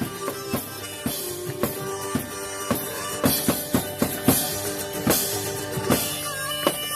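One-man band playing country music: a back-mounted drum kit pounds a steady beat of bass and snare hits that quickens into a rapid run of strikes midway, under sustained harmonica and guitar notes.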